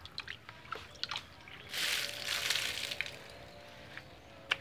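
Water sloshing and dripping in a bucket as leaves and a plastic dipper are rinsed in it, with a louder rush of water for about a second, starting a little under two seconds in.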